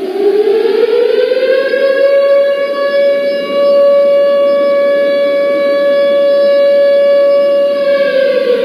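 Civil defence siren winding up to a steady high wail over the first second or so, holding that one pitch, then starting to wind down near the end. It is the siren sounded across Turkey on 10 November for the commemorative moment of silence.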